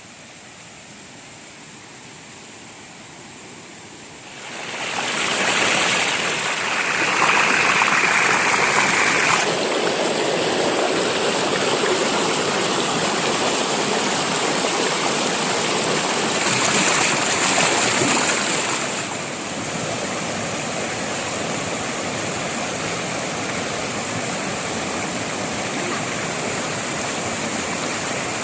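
Rushing water of a forest stream and waterfall, a dense steady rush. It is fainter at first, jumps much louder about four seconds in, and settles to a slightly lower steady level in the second half.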